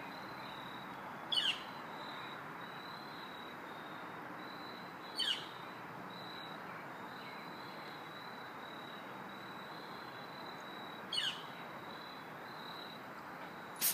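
Three short, high chirps, each falling in pitch, several seconds apart over a steady outdoor hiss, with a sharp click at the very end.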